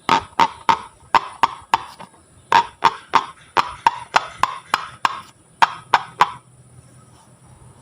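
Slime being pressed and squeezed by hand, giving a run of sharp clicking pops about three a second, with two short breaks, stopping about six seconds in.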